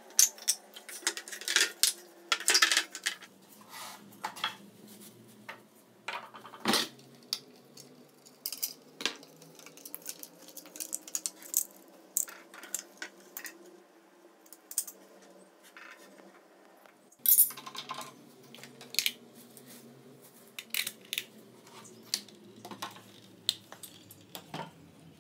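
Irregular knocks, taps and metallic clinks of tools and pine boards being handled, picked up and set down, with louder knocks about seven and seventeen seconds in.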